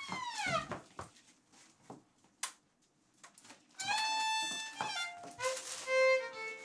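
Solo violin: a sliding phrase fades out in the first second, then a pause broken by a few soft knocks, then held bowed notes from about four seconds in.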